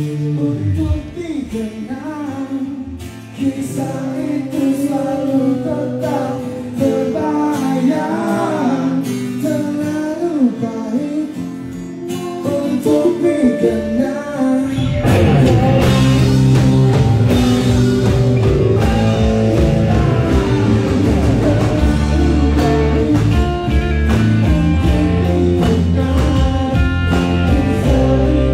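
Rock band soundcheck through the stage PA: an electric guitar plays lead lines with bent notes, then about halfway through the drum kit and the rest of the band come in together, louder and fuller, with a voice singing.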